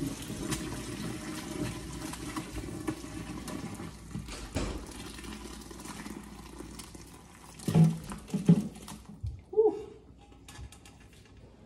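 Hot broth pouring from a stainless steel pot into a colander over a bowl in a sink, a steady splashing stream. After about seven seconds the stream stops and a few loud knocks follow as the pot's last solids are tipped out.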